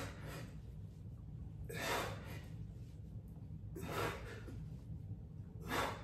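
A man breathing hard in time with dumbbell curls: four forceful breaths, about two seconds apart, over a steady low hum.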